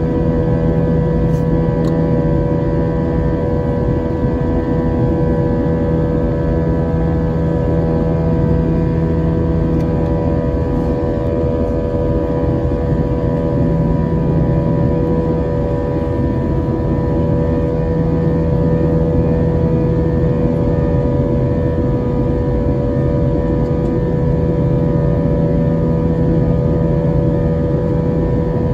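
Jet airliner engines and rushing air heard from inside the passenger cabin during the climb after takeoff: a loud, steady drone with several held humming tones.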